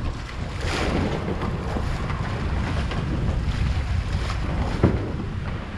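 Wind buffeting the microphone and sea water churning along the hull of a sportfishing boat, over a steady low rumble, with a sharp knock near five seconds in.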